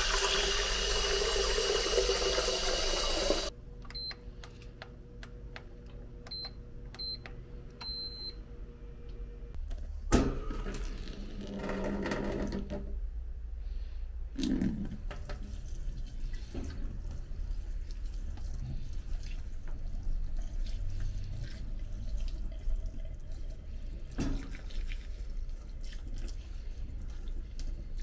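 Water running hard from a tap, cut off abruptly after about three seconds; a few short high beeps follow, then more running water and quieter splashing and handling sounds.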